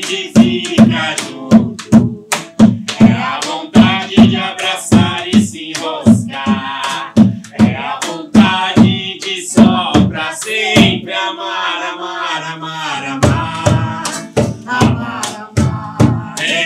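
A man and a woman singing a song in Portuguese to acoustic guitar, with a hand drum beating a quick, steady rhythm. The drum drops out for about two seconds past the middle, then comes back in.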